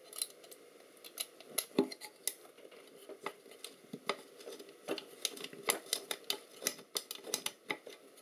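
Light, irregular clicks and scrapes of a thin metal tool working inside the open end of an ultrasound probe's handle case, prying the internal assembly loose. Several clicks a second, a few louder knocks among them.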